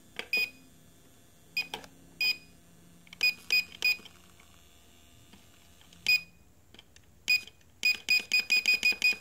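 ProMark P70-VR drone camera module beeping with short, high electronic beeps. They come irregularly at first, then near the end settle into a fast, steady run of about four a second, an unexplained noise the camera keeps making.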